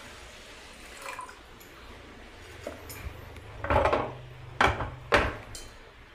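Water poured from a glass trickling faintly into an aluminium pressure cooker of rice, then the cooker clunking and scraping on the gas-stove grate three times as it is set on the burner.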